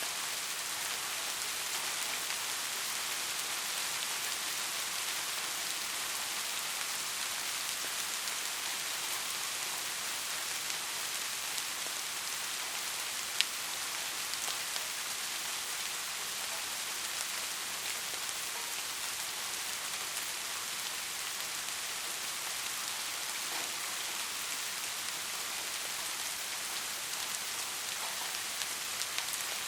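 Steady, even rain hiss with no thunder, its sound lying mostly in the higher frequencies. A single sharp tick stands out about halfway through.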